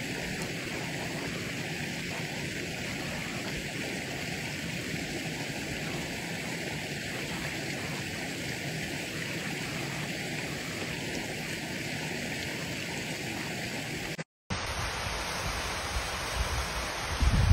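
Steady rushing of a rocky mountain stream and its small waterfalls. It cuts out for a moment about fourteen seconds in, then the rush of a waterfall cascading down the hillside.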